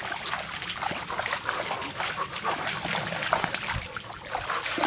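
Feet wading and splashing through shallow, muddy stream water, with short, high whining animal-like cries among the splashes.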